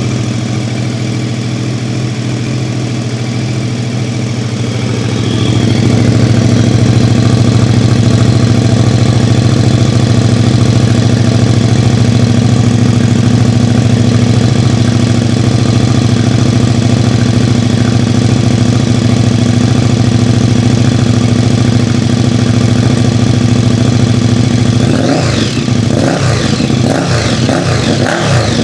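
KTM 1290 Super Duke R Evo's V-twin idling steadily through a MIVV X-M5 titanium slip-on exhaust with the baffle fitted. It grows louder about five seconds in, and a few irregular sounds rise over the idle near the end.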